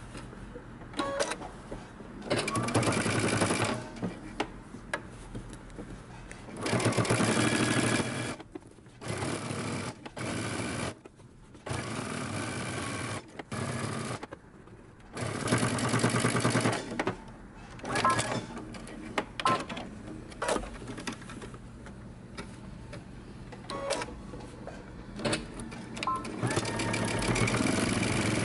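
Domestic sewing machine stitching in a series of runs, stopping and starting several times as the fabric is guided: understitching a facing close to the seam.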